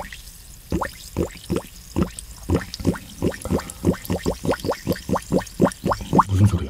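Liquid bubbling and glugging: a quick run of short blips that each rise in pitch, coming faster toward the end, with a low thud just before the end.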